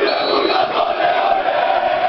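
Crowd of male football supporters chanting loudly together in unison, many voices holding the chant's line.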